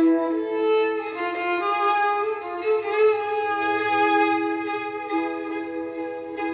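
Solo violin playing a heavy zarbi, a rhythmic Persian piece in the Shushtari mode. The player bows a moving melody above a steady lower note held throughout.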